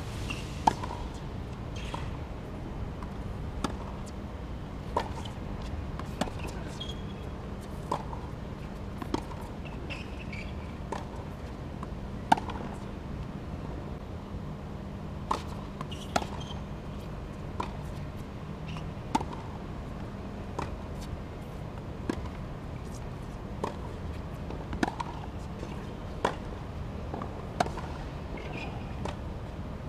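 Tennis rally on a hard court: a series of sharp pops from rackets striking the ball and the ball bouncing, spaced about a second or two apart, over a steady outdoor background hum.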